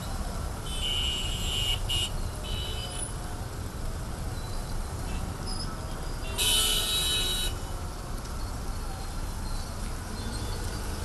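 Slow city traffic on a rain-wet road: a steady rumble of engines and tyres, with car horns honking several times. The loudest is a blast about a second long, some six and a half seconds in.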